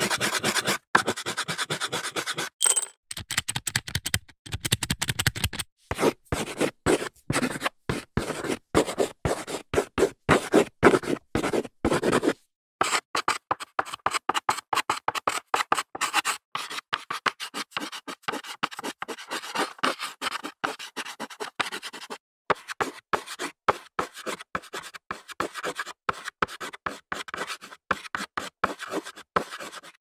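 Chalk scratching on a blackboard in runs of quick, short strokes, broken a few times by brief silences.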